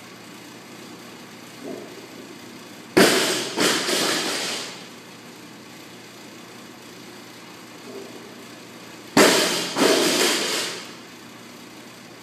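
A barbell loaded with rubber bumper plates dropped onto the gym floor twice, about six seconds apart. Each drop is a loud crash followed by a few bounces and plate rattle that fade out over about a second and a half, with a softer thud a second or so before each drop.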